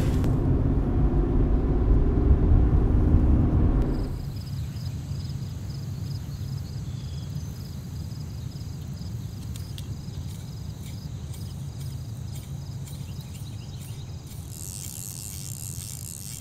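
A car's road noise, a low rumble heard inside the cabin, cuts off about four seconds in. After it comes a quiet outdoor background of insects chirping steadily, with a brief hiss near the end.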